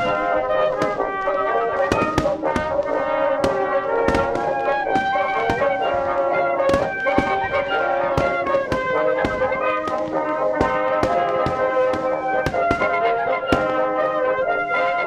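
Brass music playing with frequent sharp pops and bangs of fireworks scattered over it.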